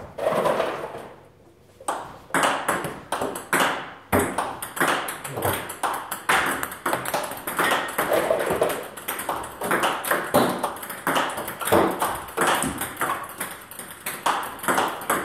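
Table tennis ball in a fast practice rally, clicking off the rubber-faced paddles and bouncing on the table, about two to three hits a second. The hits start in earnest about two seconds in.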